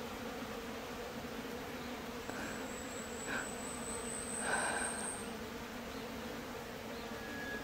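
Flies buzzing steadily around a dead wild boar's carcass that is starting to rot, with a thin high whine for a few seconds in the middle and a couple of soft rustles.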